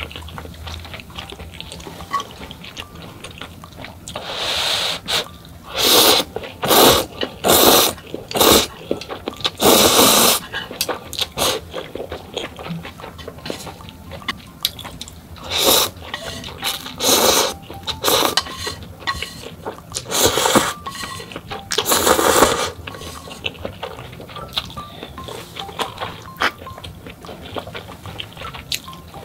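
Instant noodles slurped from chopsticks in about ten short, loud sucks over some twenty seconds, with wet chewing and small clicks in between.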